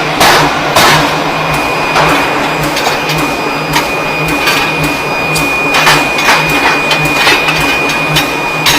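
Forging machinery running with a steady hum and a constant high whine, while sharp metal-on-metal strikes land twice in the first second, once about two seconds in, and several more from about six seconds on.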